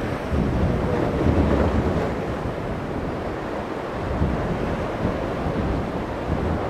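Breaking surf and rough water, with wind buffeting the microphone as a steady low rumble.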